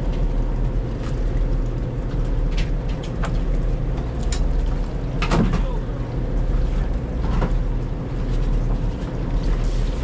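Boat engine running steadily, a constant low drone, with scattered light clicks and knocks over it.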